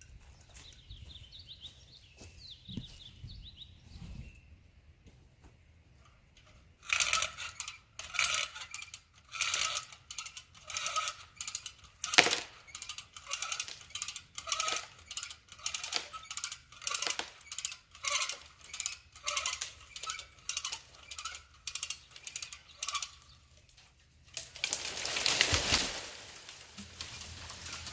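Ratcheting of a come-along (hand winch): a steady run of metal clicking strokes, roughly one every 0.7 s, as the line is drawn tight on the cut log. Near the end comes a brief rushing crash as the log shifts.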